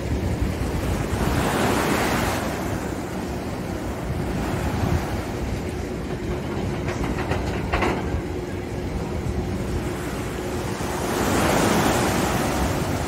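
Ocean surf washing up onto a sandy beach, its rushing noise swelling about a second in and again near the end, with a low rumble of wind on the microphone.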